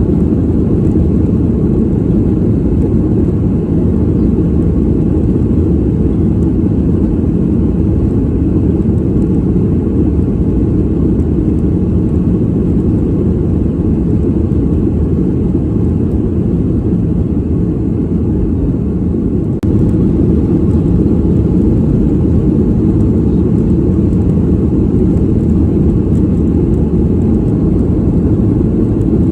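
Steady airliner cabin noise heard from a passenger seat: a low, even rumble of jet engines and airflow. There is a brief dip and a faint click about two-thirds of the way through.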